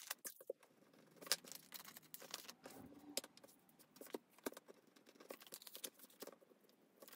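Faint rustling and light taps of paper filler cards being slid into the clear plastic pockets of photocard binder pages, in short scattered bursts.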